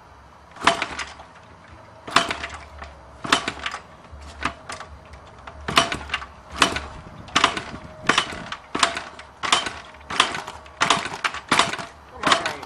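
1980 Honda XL100 single-cylinder four-stroke being kick-started cold with the choke on: about fourteen kicks, each a sharp clank of the kick-starter as the engine turns over without catching, coming faster toward the end. Its weak compression from age makes it hard to start.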